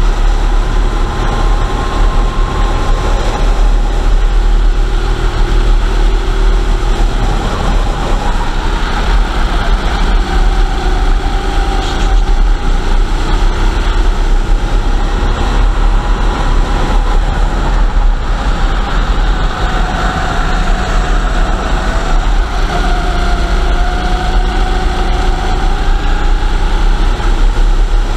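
Go-kart engine running hard on track, its pitch rising and falling with speed through the corners, over a heavy low rumble of wind on the onboard camera's microphone.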